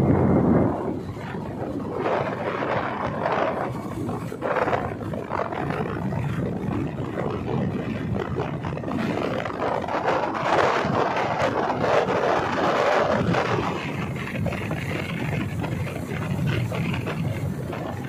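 Wind rushing and buffeting across the microphone of a moving motorbike, with road noise underneath, rising and falling in uneven gusts.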